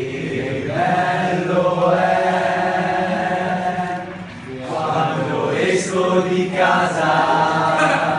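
A crowd of people singing together in unison, with a short break about four seconds in before they carry on.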